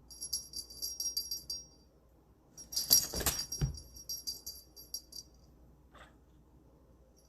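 A cat toy jingling as it is shaken, in two bouts. The second bout starts with a loud knock, and another knock follows shortly after.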